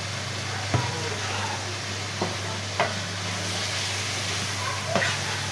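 Chicken pieces sizzling as they fry in a metal karahi, stirred with a wooden spatula that knocks against the pan about four times.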